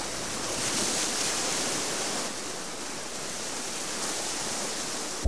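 Steady rushing wash of the open sea, an even hiss without distinct splashes.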